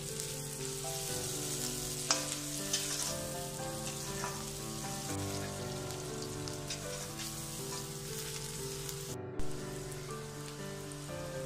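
Shredded cabbage, carrot and green chillies sizzling in hot oil in a wok on a high flame, tossed with a metal slotted spatula that clicks against the pan now and then.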